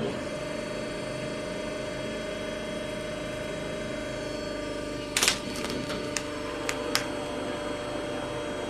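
Hydraulic press running with a steady hum, then a loud crack about five seconds in as the object gives way, followed by several sharp snaps.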